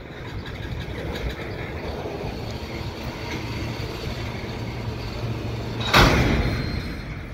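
Switching locomotive and freight cars moving in a rail yard: a steady rumble with a low engine hum, then about six seconds in a single sharp, loud crash that dies away over about a second, like cars slamming together as they couple.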